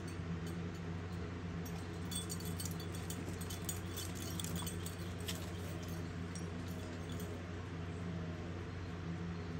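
Steady low machine hum, with a spell of light metallic jingling and ticking from about two to five seconds in.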